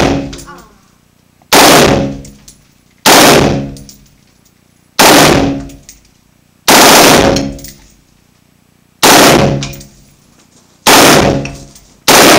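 Full-auto M16-type rifle firing seven short bursts, one every two seconds or so. Each burst rings on in a long echo down an enclosed indoor firing lane.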